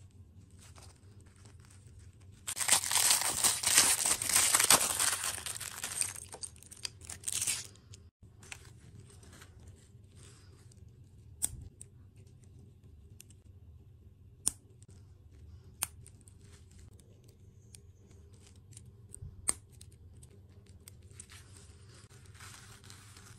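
Thin plastic wrapper torn open and crinkled for about five seconds, followed by several single sharp clicks as small plastic toy parts are snapped together, and a faint rustle near the end.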